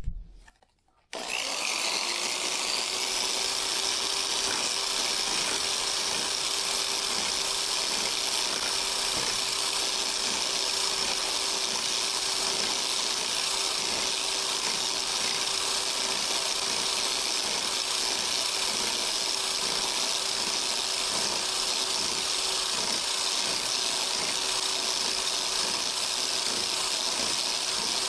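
Electric power scraper starting about a second in and then running steadily with a constant buzzing hum, its reciprocating blade scraping high spots off the blued metal gib of a Bridgeport mill.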